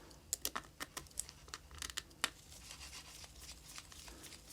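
Faint clicks and scratchy ticks of a precision screwdriver working the tiny internal screws of a Samsung Galaxy S8+, as the screws are backed out and picked up on the tip. The ticks come in a quick cluster over the first couple of seconds, then more sparsely.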